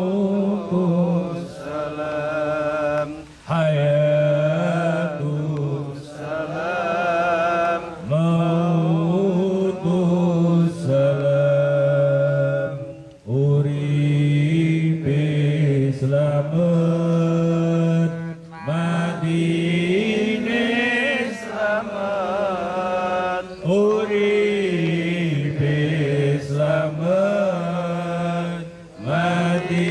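A man chanting an Islamic devotional verse into a microphone, in long, drawn-out wavering phrases with short breaths between them.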